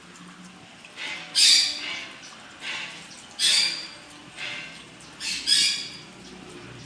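A parrot squawking repeatedly, loud calls about one a second, the loudest about a second and a half in.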